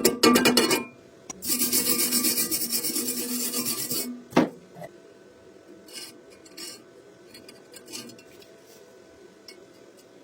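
Rapid hand scraping on metal in two bursts of fast strokes, the second lasting about two and a half seconds, followed by a single sharp knock and a few light clicks.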